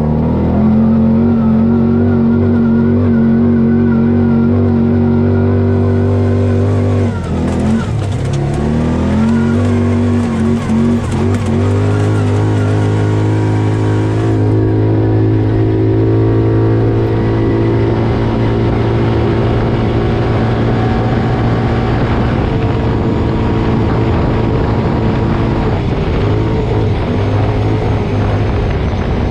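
Dirt bike engine running hard on a trail, its note steady, then falling about seven seconds in and climbing back up as the bike accelerates again, with smaller rises and falls later.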